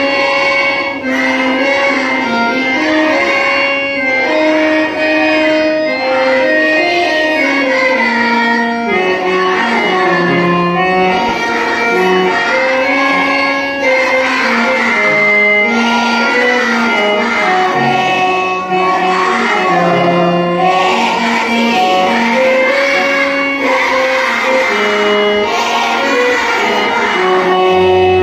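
Marathi prayer song: a singing voice over instrumental accompaniment, the melody moving in held, bending notes.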